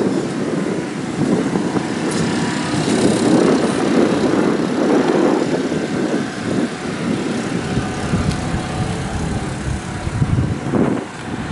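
An engine running steadily, loud and continuous.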